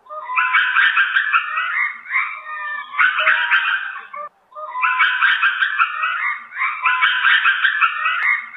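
Lemur calls: phrases of high, rapidly pulsing cries, each about two seconds long, repeating with short breaks between them.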